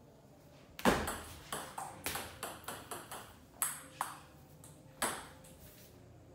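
Table tennis rally: a run of about a dozen sharp clicks as the celluloid-type ball strikes the rubber paddles and bounces on the table. It begins with the serve about a second in, the loudest click, and the last hit comes about five seconds in.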